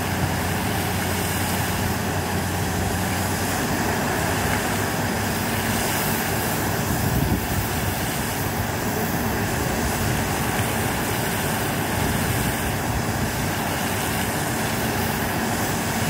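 Engine-driven machinery at a tube well running steadily, a dense constant mechanical noise; a low steady hum stands out for the first few seconds and then merges into the rest.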